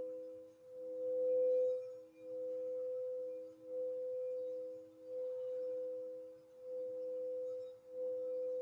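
Crystal singing bowls sustaining a steady ringing tone, a strong higher pitch over a softer lower one, swelling and dipping about every second and a half.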